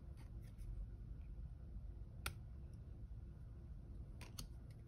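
Faint handling of stiff cardstock cards: a few sharp clicks and taps as they are picked up and set down, one about two seconds in and two in quick succession near the end.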